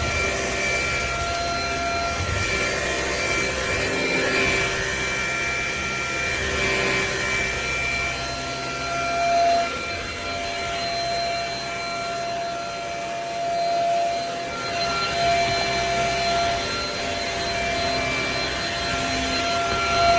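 Shark Rocket stick vacuum running with a steady motor whine and a rush of suction air, swelling briefly twice.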